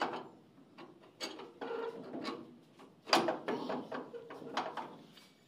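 Metal clinks and knocks of a hand tool working on a steel pulley hub while a bearing is being taken out, with an irregular string of sharp strikes, the loudest about three seconds in.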